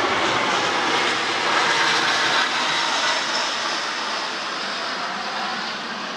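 Airplane flying overhead, loud: a steady rushing engine noise that holds for the first couple of seconds and then slowly fades away.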